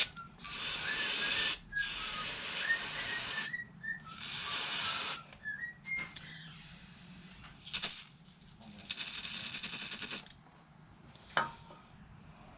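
Aerosol carb cleaner sprayed in four bursts of a second or so each, with a faint whistling in the hiss, onto a mini bike carburetor's float needle. A couple of light metal clicks between the sprays.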